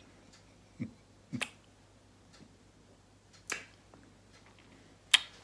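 Four sharp clicks and light knocks, a second or two apart, with the loudest and sharpest near the end, over a faint low hum.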